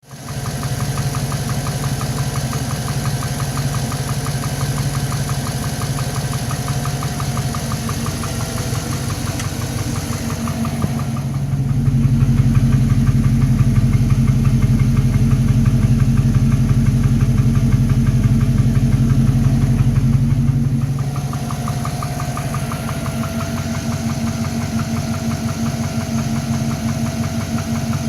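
Engine idling with a fast, even knock, which the owner takes for piston slap in an engine with only 15,000 km on it. The sound gets louder and deeper for several seconds in the middle, then drops back.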